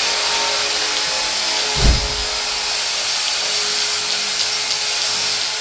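Electric grinder with a surface-prep disc running steadily on metal, with a steady whine. A dull thump comes about two seconds in.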